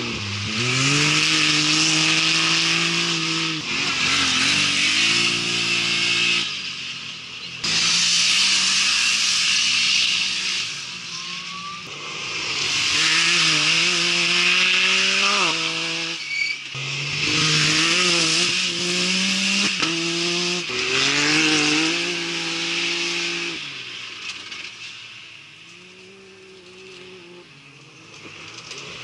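Off-road race vehicle engines, such as a side-by-side buggy, revving hard on a dirt track, the pitch climbing and dropping again and again through the gears, with a steady hiss of tyres and gravel. The sound fades near the end and picks up again as another vehicle comes in.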